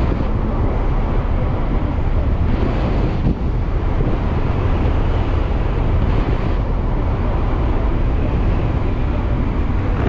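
Wind rushing over the microphone with road noise while riding an electric motorcycle at about 30 to 45 mph. The rush is loud and steady, and no engine note is heard.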